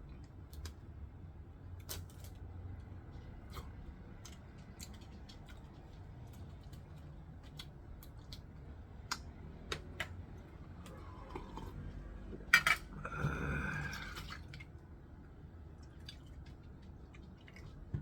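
Scattered light clicks and clinks of chopsticks and dishes at a meal, with one sharp louder clack about twelve and a half seconds in, followed by a short squeaky sound.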